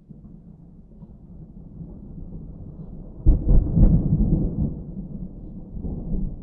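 Distant thunder: a low rumble that builds gradually, breaks into a sudden louder peal about three seconds in, then rolls on and slowly eases, swelling again near the end.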